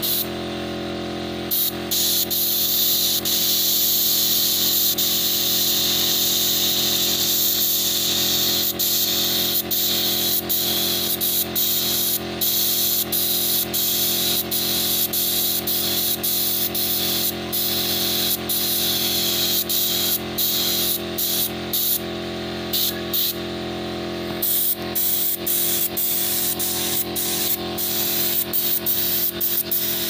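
Gravity-feed spray gun hissing as it sprays finish onto a wooden chair. The spray cuts off briefly again and again as the trigger is let go and pulled, over a steady low hum.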